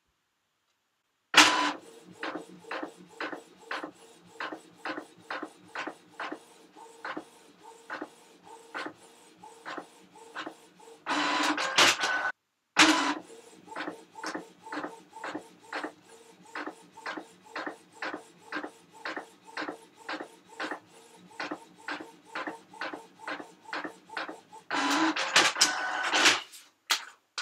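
A printer printing: a regular run of short mechanical strokes, about two a second, starting a little over a second in. It is broken twice by a louder continuous stretch lasting a second or two, once near the middle and once near the end.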